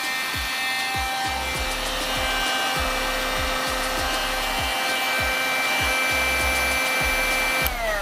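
Kitfort KT-529-2 cordless hand vacuum running with its brush nozzle on carpet: a steady motor whine over a rushing suction hiss. Near the end it is switched off and the whine falls in pitch as the motor spins down.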